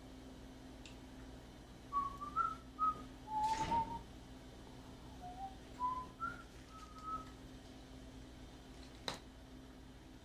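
A person whistling a short tune of about a dozen quick notes that wander up and down in pitch, with a brief rustle partway through and a single sharp click near the end.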